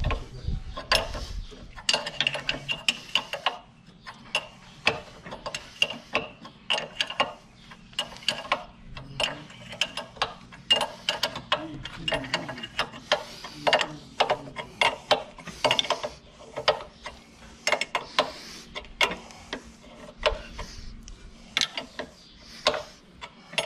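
Ratchet clicking in repeated uneven strokes as it cranks the screw of a tractor tire bead-breaker tool, forcing the tire bead off the rim.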